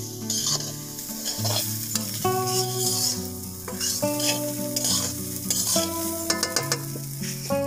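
Metal spatula stirring and scraping a rice mixture around a black iron wok, with the food sizzling over the fire. Repeated scraping strokes run over steady instrumental music.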